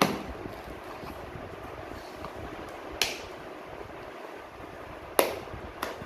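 Cardboard parcel being opened by hand, a pen point slitting the packing tape and the flaps being pulled apart, giving four sharp snaps: one at the start, one about three seconds in, and two close together near the end, the first of those the loudest.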